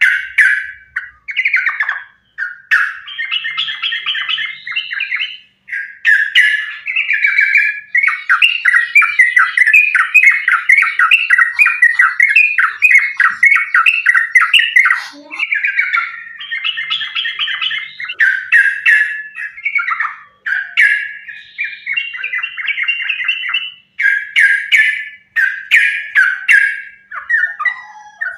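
Yellow-vented bulbul (trucukan) singing non-stop in rapid, chattering runs of notes with only short pauses. This is the excited, combative 'fighting' song that keepers play as a bait recording to set other trucukan singing.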